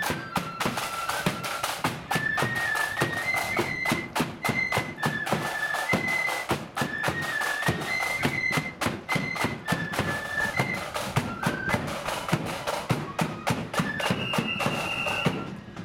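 Blood-and-thunder marching flute band playing a tune on massed flutes, with snare drums and a bass drum beating time. Near the end the flutes hold one long high note, and then the music stops.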